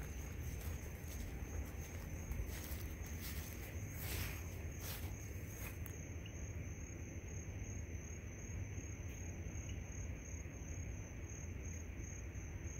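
Night insects trilling steadily in a high pulsing chirr, with footsteps through grass for about the first six seconds, which then stop.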